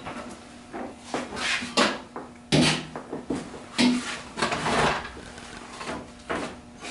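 Irregular knocks, scrapes and rustling of things being handled and moved, about ten separate short sounds, with no saw motor running.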